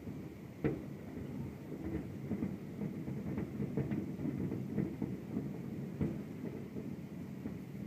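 Distant fireworks display: a continuous low rumble of aerial shells bursting over one another, with sharper bangs standing out about two-thirds of a second in and again near six seconds.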